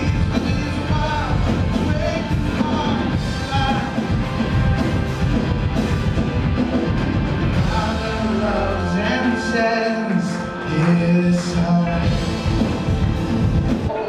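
Live worship band playing with singing, drums and bass. About eight seconds in the drums and bass drop away, leaving held sung and keyboard notes.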